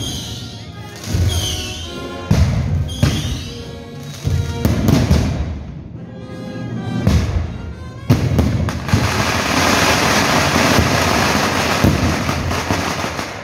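Firecrackers going off in the street: a series of single loud bangs, each echoing, then from about eight seconds in a long string of firecrackers crackling continuously until near the end. Band music plays underneath.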